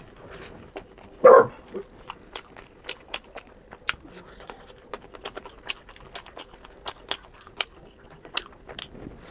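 Close-miked eating: irregular wet clicks and smacks of chewing and biting, a few each second. About a second and a half in there is one loud, short sound.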